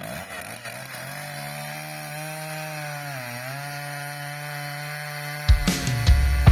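Two-stroke chainsaw running at a steady high speed, its pitch sagging briefly about three seconds in as if under load. About five and a half seconds in, a much louder sound with sharp hits cuts in over it.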